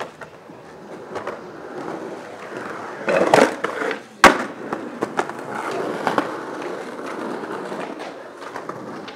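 Skateboard wheels rolling on pavement, with a loud half-second burst of board noise about three seconds in, then one sharp crack of the board hitting the ground just after four seconds, the loudest sound, before it rolls on steadily.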